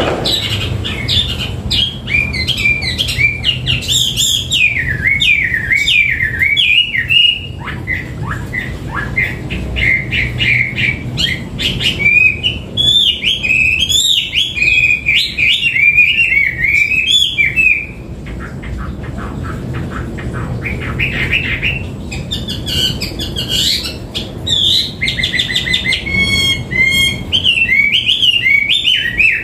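Chinese hwamei in full song: a loud, varied stream of rapid whistled and warbling phrases, with a quieter stretch about two-thirds of the way through and fast trilled notes near the end.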